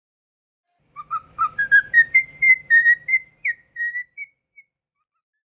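A quick run of short whistled notes, stepping up in pitch over the first second and then hovering at one height, lasting about three and a half seconds.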